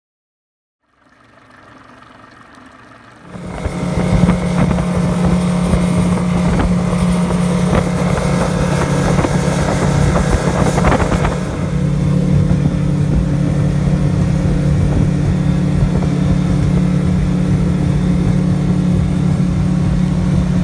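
Motorboat running steadily at speed across choppy water, a steady engine hum under rushing wind and water noise. It starts faintly and turns loud about three seconds in.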